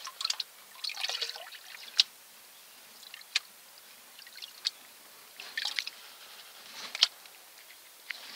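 Water sloshing and dripping in a plastic gold pan as it is swirled and dipped in a tub, washing the light sand off the top to leave the heavy concentrate. The sloshing comes in irregular bursts, with sharp single splashes about two seconds in and about seven seconds in.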